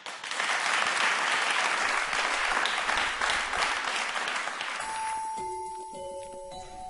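Studio audience applauding, fading out about five seconds in as soft music with a few long held notes begins.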